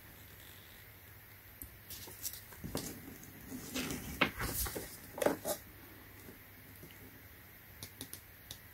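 Paper pages of an owner's manual being turned by hand: a few seconds of rustling and flapping, then a few faint ticks near the end.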